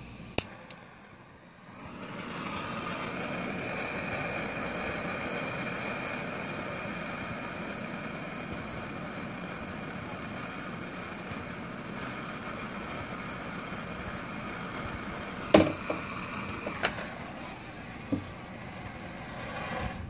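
Self-lighting propane hand torch burning with a steady hiss, starting about two seconds in, as its flame heats a solder-filled MC4 connector pin. A few sharp clicks come near the end.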